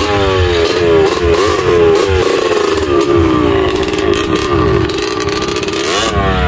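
Dirt bike engine revved several times in quick rising sweeps, then running at a steady pitch as the bike pulls away, with another rev near the end.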